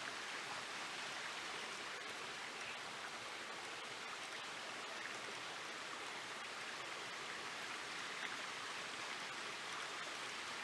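Steady, even rushing of a small forest creek.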